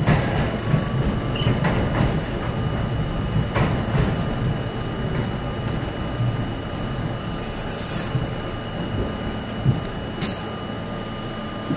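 Subway train running on its track: a steady rumble with a few scattered sharp clicks and knocks, growing gradually quieter toward the end.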